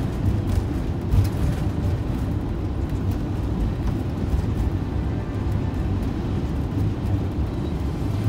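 Steady low rumble of engine and tyre noise inside a motorhome's cab, driving along a highway at speed.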